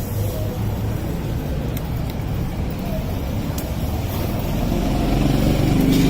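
Street traffic: a steady rumble of road vehicles, with an engine growing louder near the end as it comes close. Faint voices in the background.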